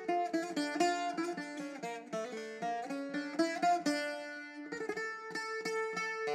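Background music: a plucked string instrument playing quick picked notes over a held note.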